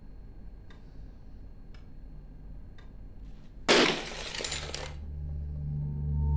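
A clock ticking about once a second, then a sudden crash and clatter of glass about three and a half seconds in, lasting about a second, as a phone handset hits the wooden floor among shards of broken red glass. A low musical drone swells in after it.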